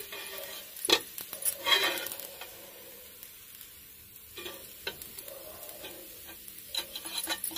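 A metal spatula scrapes and clicks against a hot nonstick tawa as a crisp ragi dosa is lifted and turned, with a faint sizzle underneath. The longest scrape comes about two seconds in, and a few sharp clicks follow later.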